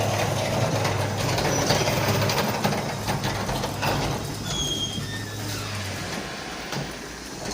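Garage door running on its opener, with a steady motor hum under a rough grinding rattle and brief squeaks from worn rollers in the track, metal rubbing on metal. The motor hum stops about six seconds in.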